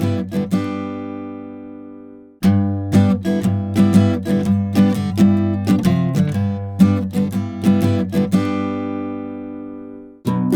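Acoustic guitar strumming chords, each strum ringing out and fading. The passage cuts off abruptly about two seconds in and starts over. It runs again, fades, and is cut once more near the end, as successive takes of the same guitar part are switched between.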